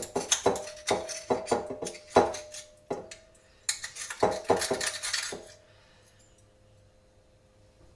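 Oyster shucking knife scraping and clicking against the shell as the oyster meat is cut free, a quick run of sharp clicks and scrapes, some with a short ring; it stops about five and a half seconds in.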